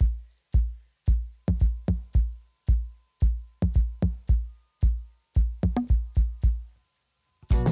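Background music: an electronic beat of deep kick-drum hits, about two a second. A fuller part with sustained bass and chord notes comes in near the end.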